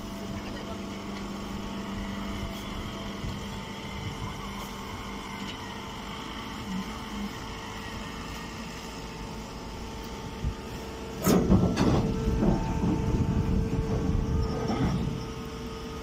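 Heavy machinery running with a steady hum. About eleven seconds in, a much louder rattling, clattering noise starts and lasts about four seconds.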